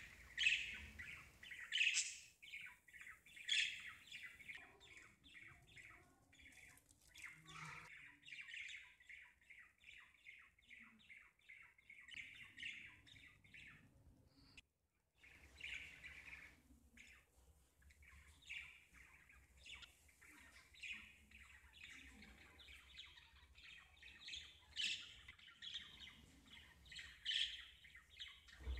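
Small birds chirping and twittering in quick, repeated calls, fairly faint, with a brief drop-out about halfway through.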